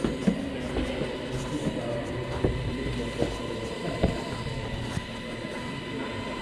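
Handling noise on a GoPro's own microphone as the camera is held and turned in a hand: rubbing and irregular knocks over a low rumble, with a faint steady high hum underneath.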